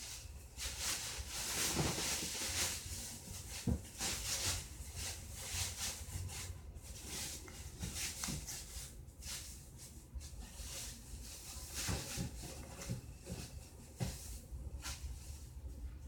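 Irregular rustling and handling noise with scattered soft knocks and clicks over a steady low hum.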